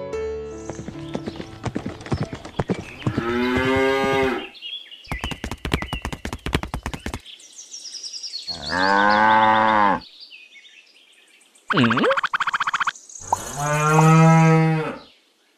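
A cow mooing three times, each moo a second or more long, with rapid clicking in the gaps between them.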